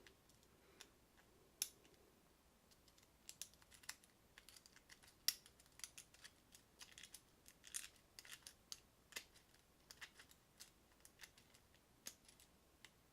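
Faint, irregular clicking and light scraping of a lock pick and tension wrench working the standard pin tumblers of a KIK cylinder with a Schlage keyway during single pin picking.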